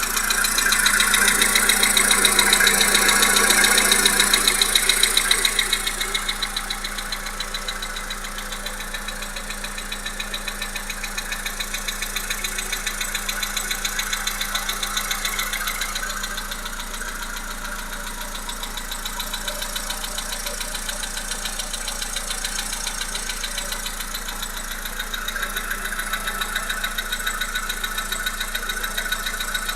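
Volkswagen Polo Sedan's 1.6-litre CFNA four-cylinder petrol engine running with a fast, regular knock. The sound is louder for the first five or six seconds, then settles to a steadier level.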